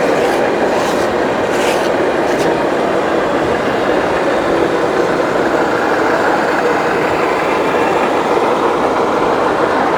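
Steady, loud din of a busy exhibition hall, with a few sharp clicks in the first couple of seconds.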